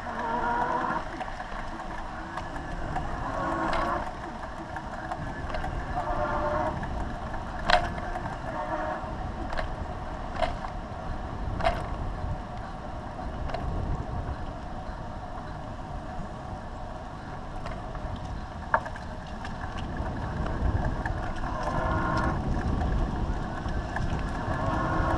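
Wind on the microphone and tyre rumble from a Pedego City Commuter electric bicycle rolling over rough, cracked asphalt, heard from its handlebars. A few sharp clicks and knocks come through as the bike rides over bumps.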